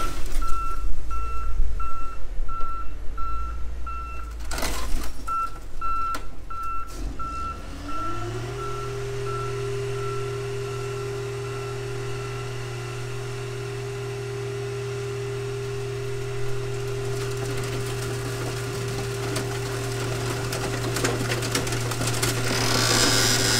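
A wheel loader's reversing alarm beeps about twice a second, with a couple of metal knocks as the car is set on the pile. About eight seconds in, the car crusher's hydraulic power unit rises in pitch over about a second and then runs at a steady hum as the crushing lid comes down on the stacked cars.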